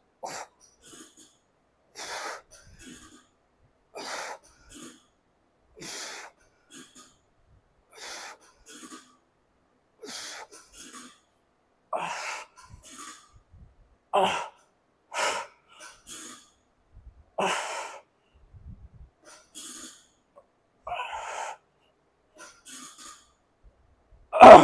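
A man's forceful breaths while doing heavy hack squat reps, one breath about every two seconds. From about halfway the breaths come closer together and louder as the set nears failure, with a much louder burst right at the end.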